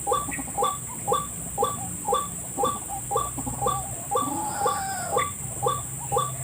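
White-breasted waterhen call played back as a lure, a 'kru-ak' note repeated in a strict rhythm about twice a second, over a steady high hiss. A fainter, wavering call joins briefly around the middle.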